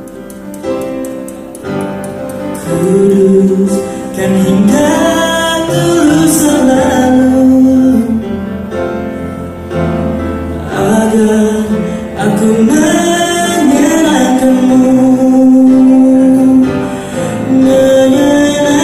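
Male voice singing an Indonesian Christian worship song into a microphone, with musical accompaniment.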